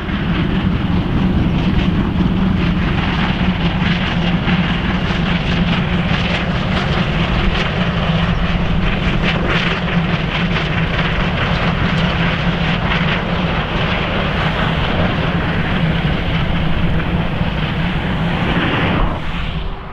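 South African Class 19D steam locomotive working hard, a loud steady roar of exhaust and running gear with a low hum under it. It fades in at the start and fades out near the end.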